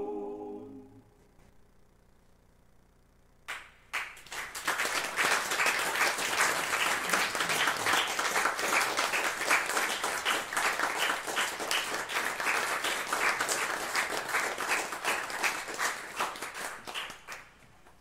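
An a cappella choir's final chord dies away, and after a few seconds of quiet a small audience starts applauding. It opens with a lone clap or two, builds into steady clapping, and thins out near the end.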